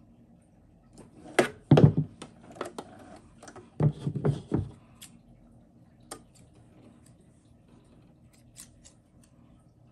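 Sewing scissors snipping thread and fabric, with handling clatter. The loudest snips and knocks come in two short clusters, about one and a half and four seconds in, followed by a few light single clicks.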